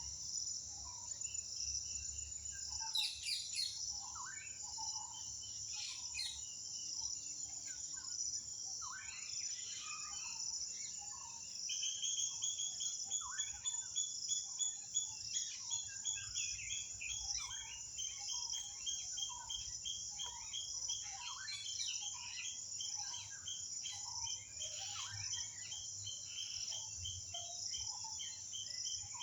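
Oriental magpie-robin singing a run of varied short whistles and chirps over a steady high-pitched drone of crickets. A fast, even trill joins in about twelve seconds in.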